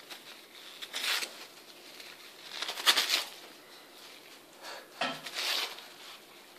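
Paper rustling and tearing as a cat bites and claws at a sheet of paper, in three short bursts about one, three and five seconds in.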